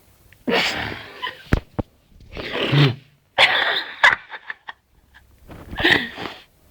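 A man snoring: four loud, noisy breaths in and out, one with a low rattling flutter about three seconds in, with a few sharp clicks among them.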